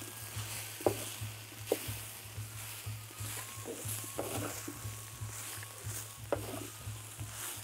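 Wooden spoon stirring and scraping huitlacoche, squash and chiles on a hot clay comal, with a light sizzle. The spoon knocks sharply against the comal a few times: about a second in, near two seconds and a little after six seconds.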